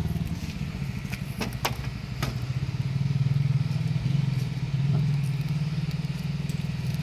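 Small battery-powered handheld fan running with a steady whirring hum, blowing air onto charcoal to get it burning. A few sharp clicks come about one and a half to two and a half seconds in.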